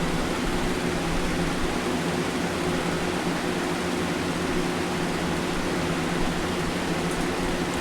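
Steady background noise: an even hiss with a low hum under it, unchanging throughout.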